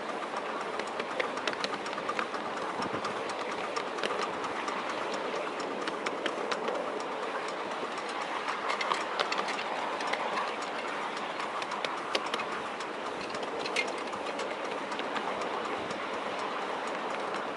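Miniature railway train (7¼-inch gauge) running along the track, heard from on board: a steady rattle of wheels on rail with irregular clicks over the rail joints.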